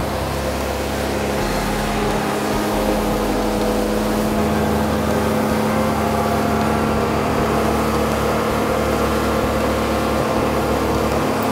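Suzuki 300 four-stroke outboard running at cruising speed as the boat planes across open water, a steady engine drone mixed with the rush of water past the hull.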